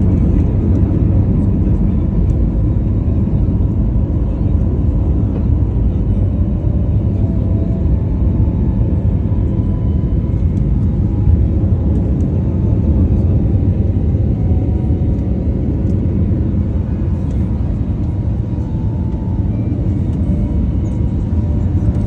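Jet airliner cabin noise during the takeoff and climb, heard from a window seat beside the wing: a steady, loud, low rumble of the turbofan engines and rushing air.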